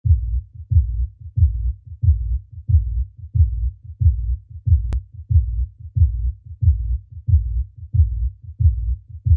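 Heartbeat sound effect: a deep, even double thump, lub-dub, about one and a half beats a second. A single faint click comes about halfway through.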